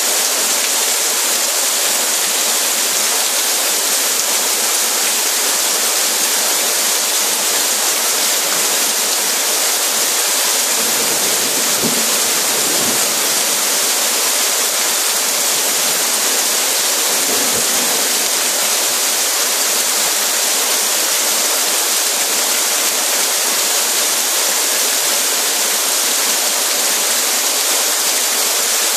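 Heavy summer rain pouring steadily onto paving, a dense, even hiss. Close by, a drainpipe gushes its overflow onto the pavement.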